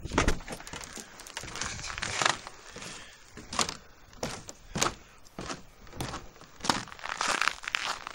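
Footsteps crunching on frozen snow in subzero cold, about one step a second.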